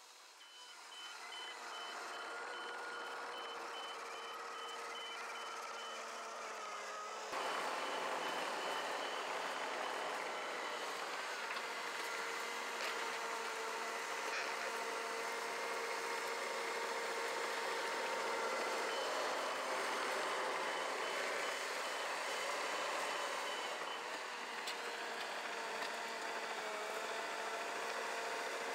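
Caterpillar crawler dozer's diesel engine running with its reverse alarm beeping in a rapid, regular series as the machine backs up. The whole sound gets suddenly louder about seven seconds in.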